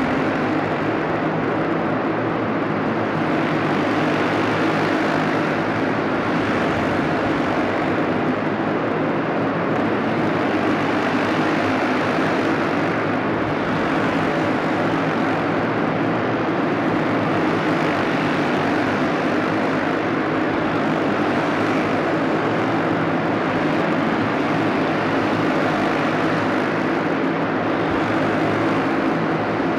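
A pack of racing go-karts running at race speed, their small engines buzzing together in one continuous drone that swells and eases as karts pass close by, echoing through a large indoor hall.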